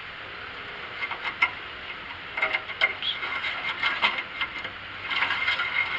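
Metal oil dipstick being slid back down its tube on a Ford F-250 engine that is not running, making a series of light clicks and scrapes, with a denser scraping rustle near the end.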